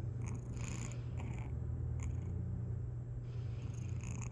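Dwarf tabby kitten purring steadily as it is stroked, a continuous low rumble with a few faint rustles of fur under the hand.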